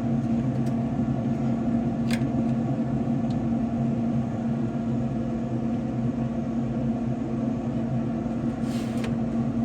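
Steady mechanical hum of a running pellet smoker's fan, with a couple of light clicks and a brief scrape near the end.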